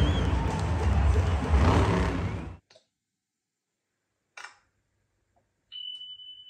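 Max-D monster truck's engine running loud on the dirt arena floor, cutting off abruptly about two and a half seconds in. After a pause comes a single sharp click, then near the end a steady high tone like a notification chime.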